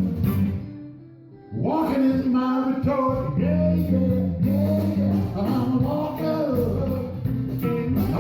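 Background music: a rock-blues song with guitar and singing. It dips briefly about a second in, then comes back.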